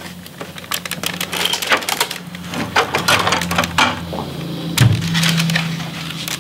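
Plastic clicks, knocks and rattles from the Yamaha MOXF8's keybed as it is handled and tipped over on its hinges, with a steady low hum underneath.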